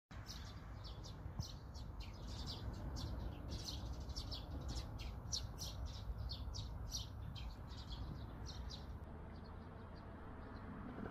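Birds chirping: a rapid run of short, high chirps, thinning out after about nine seconds, over a low steady rumble.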